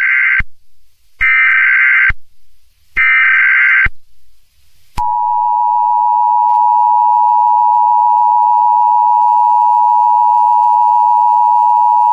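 Emergency Alert System broadcast tones. First come three short, harsh data bursts about a second each: the SAME header that encodes the alert. Then, about five seconds in, the steady two-tone attention signal starts and holds, the tones that herald a tornado warning.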